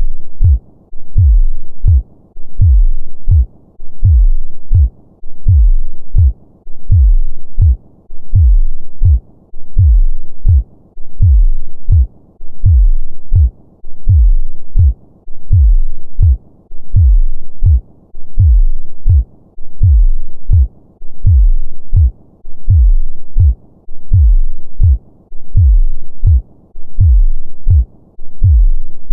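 A normal human heartbeat: steady, regular lub-dub double thumps, deep and low, at roughly one beat a second.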